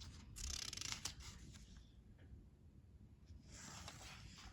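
Faint rustle of paper, twice, as the pages of a picture book are handled and turned.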